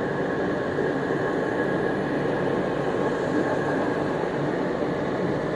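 Steady whir of an EPE foam sheet extrusion line running, dominated by its centrifugal cooling blower at the extruder head: an even rushing hiss with a faint steady whine on top.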